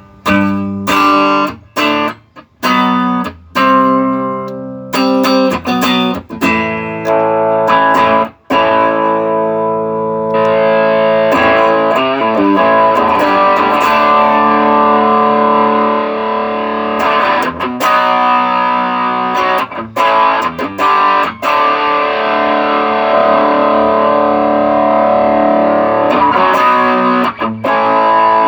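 Electric guitar played through a TC Electronic Nova Drive overdrive pedal: separate strummed chords with short gaps at first. About a third of the way in, the tone turns brighter and the chords ring on without breaks. The pedal was just repaired with new gain and volume pots, and the sound test shows it working again.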